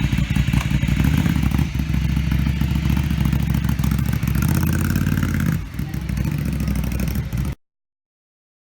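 Ducati Monster 797's air-cooled L-twin engine running with a rapid, pulsing beat. It dips briefly about five and a half seconds in, then cuts off abruptly.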